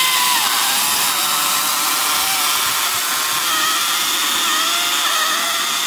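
Husqvarna battery chainsaw cutting through a log: a steady electric-motor whine over the rasp of the chain in the wood, its pitch sagging and wavering under load.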